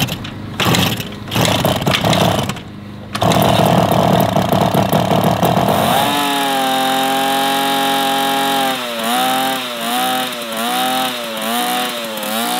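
1966 Yamaha YL1 Twin Jet's 100cc two-stroke twin running with a chainsaw-like buzz. It is ragged and uneven for the first few seconds, then holds a steady high pitch. In the last few seconds the revs rise and fall several times.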